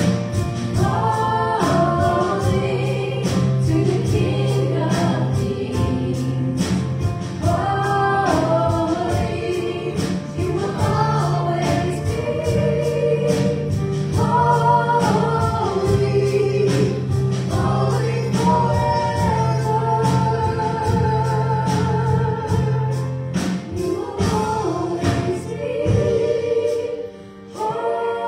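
Live worship team singing a contemporary worship song in several voices over band accompaniment with a steady beat. The music dips briefly near the end.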